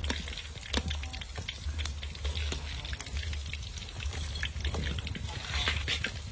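Hot oil crackling and popping in irregular small snaps on freshly deep-fried rat meat, over a steady low rumble.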